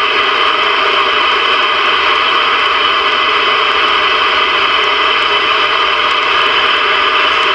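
Steady static and hiss from a Ranger VR-9000 CB/11-metre radio's speaker, tuned to 26.925 MHz on the lower band with no clear station coming through.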